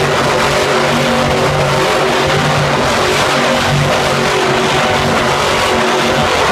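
Grave Digger monster truck's supercharged V8 held at high revs while the truck spins donuts on dirt, a loud, steady engine note with little change in pitch.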